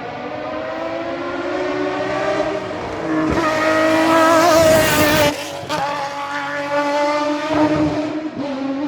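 Historic racing car accelerating hard uphill and passing close by, its engine note rising and at its loudest about four to five seconds in. The note breaks briefly twice, about five seconds in and again near eight seconds, as the driver changes gear, then climbs again.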